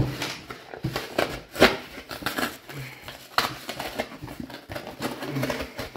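A subwoofer being cut and pried apart by hand to reach its voice coil: irregular scraping with sharp cracks and clicks, the loudest about a second and a half in.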